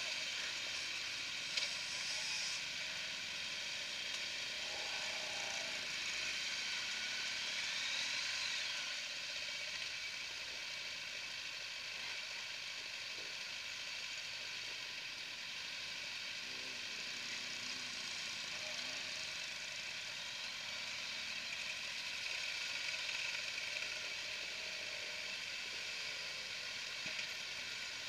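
Steady hiss of many motorcycles running around the bike in a slow-moving group ride, with no single engine standing out.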